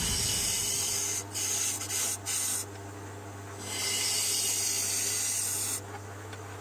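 Myford ML8 wood lathe working a black walnut bowl: a hiss of abrasive or tool against the spinning wood over a steady low hum. The hiss drops out briefly several times and stops near the end.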